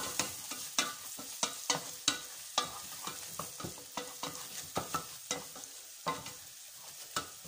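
Chopped onions frying in oil in a stainless-steel pot with a steady sizzle, while a spatula stirs them, scraping and knocking against the pot in quick, irregular strokes.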